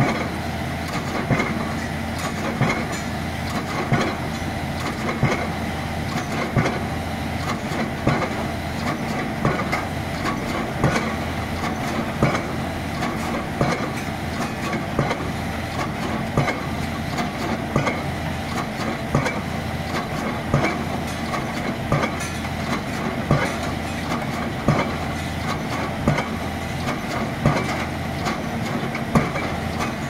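9-ton single-acting hydraulic pile hammer striking a concrete pile at a steady rhythm, about one blow every 1.3 seconds, over the piling rig's engine running steadily.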